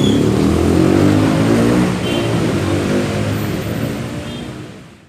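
A motor vehicle engine running on the move, its pitch shifting up and down with speed. The sound fades steadily and dies away near the end.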